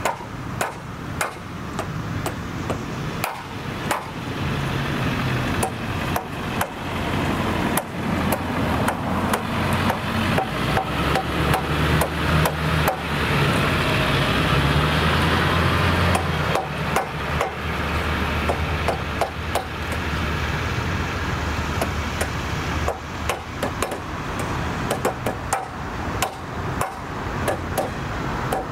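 Irregular sharp knocks and taps from hand work on crossing gate hardware. A motor vehicle passes through the middle, its engine and tyre noise swelling and then fading.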